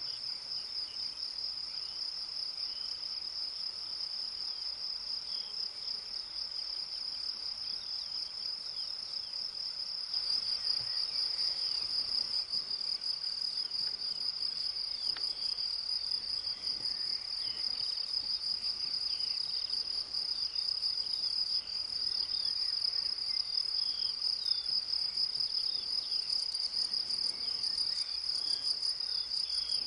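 Meadow insects singing in a continuous, high-pitched chorus with no breaks. It gets slightly louder about ten seconds in.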